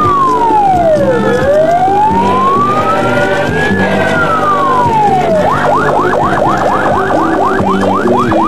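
Electronic siren sounding a slow wail that rises and falls, then switching about five and a half seconds in to a fast yelp of about four rising sweeps a second, over the noise of a large crowd.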